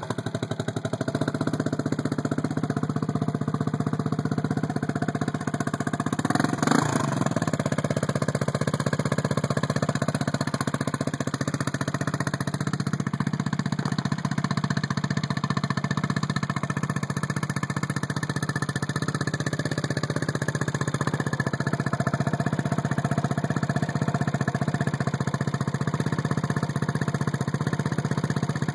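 Freshly assembled turbocharged engine idling steadily, run for a final leak check. It gives one short rev about six to seven seconds in, then settles back to idle.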